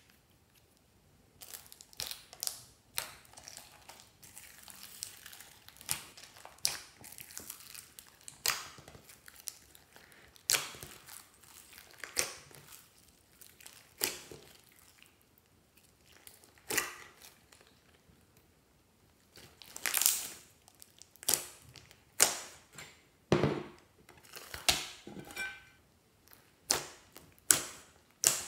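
Hands squeezing, folding and kneading glossy slime mixed with beads and glitter: irregular sticky squelches, pops and crackles, coming thicker in the last third.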